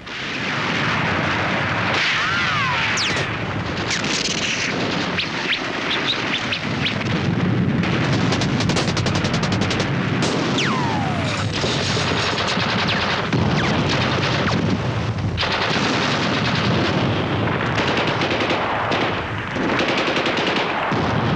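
Continuous battle sound of rapid machine-gun and small-arms fire. A short falling whistle comes a couple of seconds in and a longer one about halfway through.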